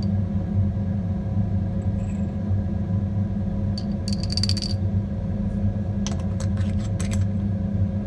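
Metal spatula clinking against a glass test tube: a quick run of ringing taps about four seconds in as ammonium chloride powder is tipped in, then a few lighter clicks. A steady low rumble lies under it.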